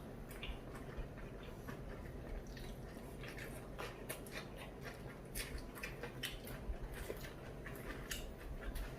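Faint, irregular crunching of someone chewing crispy Japanese fried chicken (karaage), heard close up.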